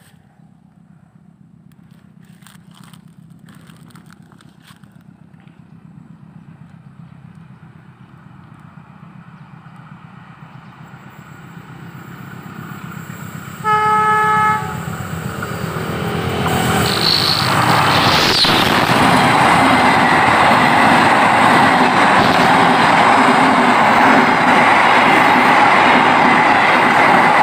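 Diesel-hauled passenger train approaching and passing. A distant engine rumble builds slowly, then the locomotive's horn sounds once for about a second. A few seconds later the train goes by close, with loud steady wheel-and-rail noise as the coaches roll past.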